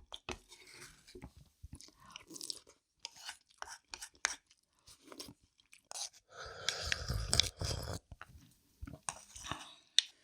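Close-miked chewing of food, with crunches and wet mouth clicks, and a louder, denser stretch of eating sounds about six to eight seconds in.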